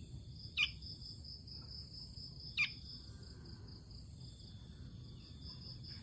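Two short, high chirps sliding sharply downward, about two seconds apart, from hand-held fledgling songbirds, over a steady high pulsing chorus of insects.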